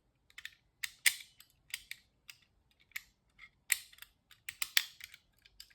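Homemade pick and tension tool clicking inside an ERA five-lever mortice sashlock as the levers are lifted during picking: irregular, sharp clicks with uneven gaps between them.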